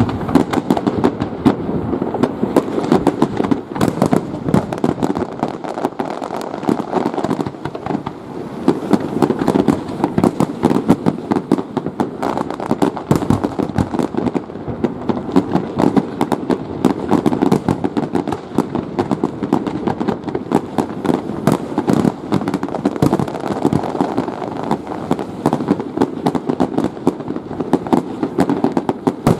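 Fireworks display: a dense, continuous barrage of shell bursts and crackling, many bangs a second with a steady rumble underneath.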